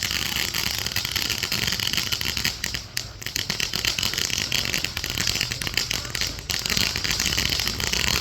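A firework burning on the ground, giving a dense, steady crackling hiss.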